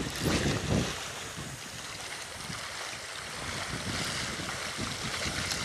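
Wind buffeting the microphone in low gusts for about the first second, then a steady rush of wind and sea waves.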